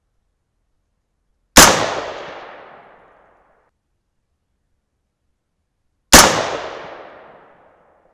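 Two rifle shots from an AR-15 with an 18-inch White Oak Armament SPR barrel firing hot .223 loads, about four and a half seconds apart. Each is a sharp crack followed by an echo that fades over about a second and a half.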